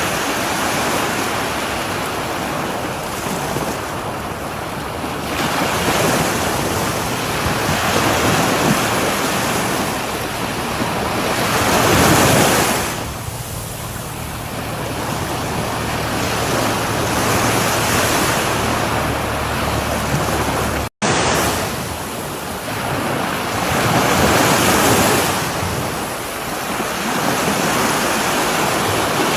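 Sea waves breaking and washing up a shore, a steady rush that swells and ebbs every few seconds, loudest about twelve seconds in. A split-second gap of silence cuts in about two-thirds of the way through.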